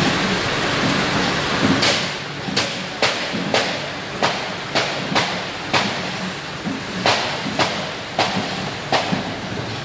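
Packing-line conveyor machinery running with a steady mechanical noise. From about two seconds in, sharp clacks repeat at roughly two a second.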